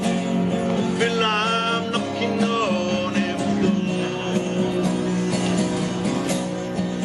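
Music: an acoustic guitar strummed, with a singing voice heard in a couple of short phrases.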